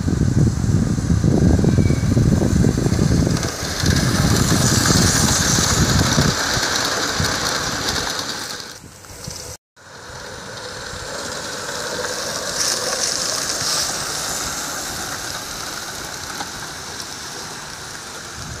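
Wind rumbling on the microphone over a steady hiss from a live-steam garden-scale LMS Black 5 locomotive running with its train. The wind rumble dies away after about six seconds, and the sound drops out briefly just past halfway.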